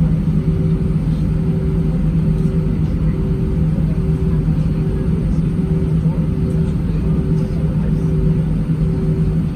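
Steady cabin rumble of an Airbus A319 airliner under way, engines and airflow heard from inside the cabin, with a constant low hum.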